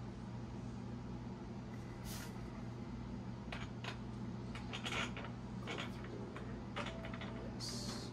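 Faint scattered clicks, taps and rustles of hands fitting parts at an electric scooter's seat post, over a steady low hum.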